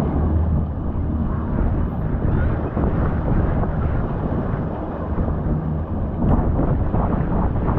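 Motorboat under way: the engine runs steadily under the rush of water along the hull, with wind buffeting the microphone.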